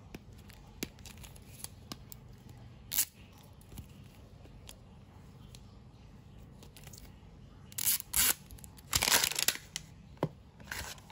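Toy packaging being torn open by hand: a few short tearing rips about eight and nine seconds in, with scattered clicks and crinkles before and after.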